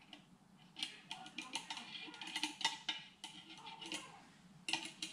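Scattered light clicks and taps of an oil squeeze bottle and small engine parts being handled while oil is put on parts in an open crankcase half, with a quieter stretch in the middle and a short cluster near the end.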